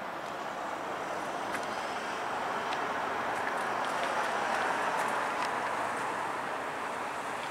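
A vehicle passing, its noise gradually rising to a peak about halfway through and then easing off, with a few faint clicks.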